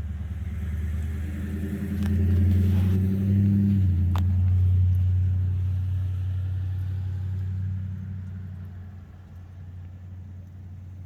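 A passing vehicle's engine rumble that swells, holds for several seconds and fades away, with a single sharp click near the middle.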